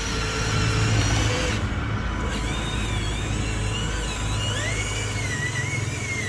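Small electric motor and plastic gearing of an RC toy truck running steadily, with a high whine that wavers in pitch.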